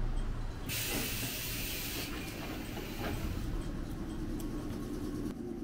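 Loud hiss of compressed air from a stopped local train, starting abruptly about a second in and dying away over the next couple of seconds, over the car's low rumble.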